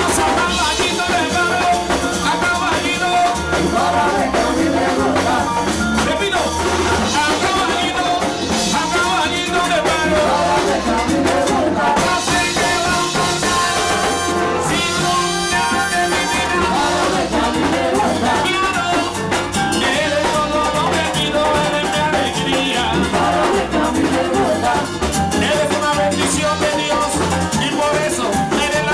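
Live Puerto Rican plena band playing: panderetas, congas and drum kit keeping a driving beat under a lead singer on microphone.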